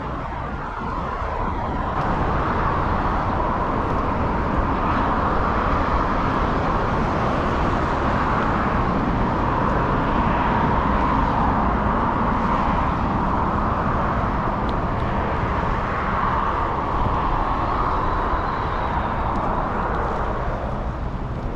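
Steady rushing noise of wind on the microphone and bicycle tyres rolling, with low rumble from the wind buffeting. It grows louder about two seconds in as the riding picks up.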